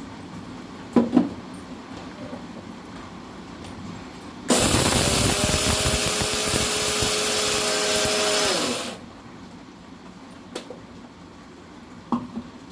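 Kitchen mixer grinder (mixie) running for about four seconds, grinding dry ingredients to a powder, then switched off, its motor whine dropping away as it stops. A couple of sharp knocks come about a second in and near the end.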